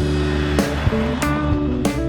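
Background music: a song with guitar and a steady beat, between sung lines.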